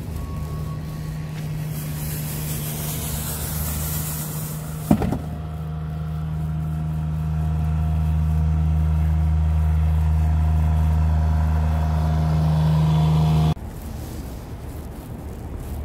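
Skid-steer loader with a rotary broom attachment clearing snow, its engine running steadily, with one sharp knock about five seconds in. The engine grows louder partway through and cuts off suddenly near the end.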